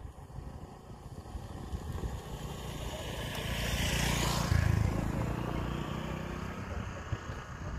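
A motorcycle engine passing, swelling to its loudest a little past halfway and then fading.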